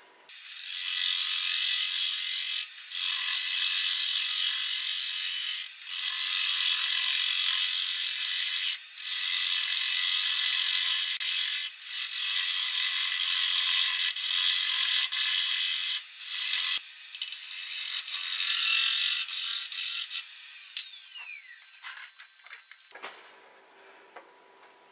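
A turning gouge cutting the face of a spinning wooden piece on a wood lathe: a loud, steady hissing shear in long passes, broken by brief pauses every few seconds as the tool comes off the wood. Near the end the cutting stops and a falling whine follows.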